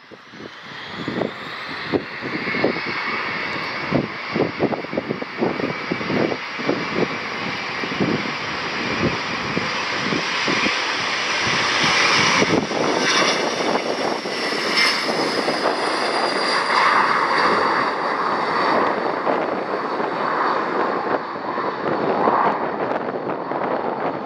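A Dassault Falcon 50EX's three AlliedSignal TFE731-40 turbofans spooling up for takeoff: a whine rising in pitch over a growing roar. The roar is loudest about halfway through as the jet rolls past on its takeoff run, then carries on steadily as it climbs away.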